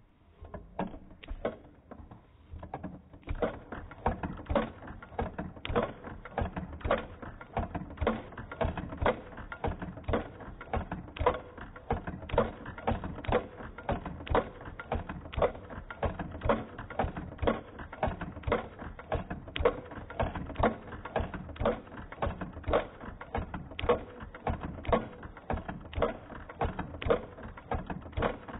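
Davis vertical feed sewing machine running, its mechanism clicking and knocking in a steady rhythm of louder knocks about once a second with lighter clicks between. It starts faintly and fills out about three seconds in.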